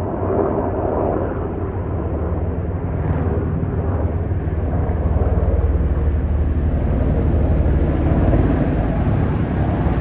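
Firefighting helicopter flying past, a steady rotor and engine drone with a fast low beat from the blades.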